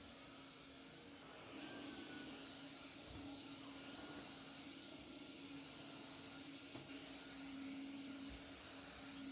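A faint, steady whir of a household appliance's motor, holding one low tone with a thin high whine above it, getting a little louder about a second and a half in.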